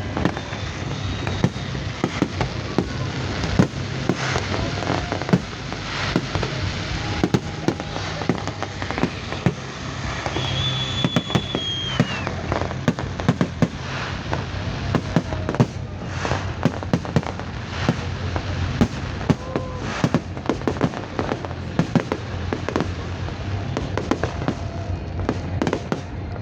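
A fireworks display with a dense, continuous barrage of bangs and crackling shell bursts.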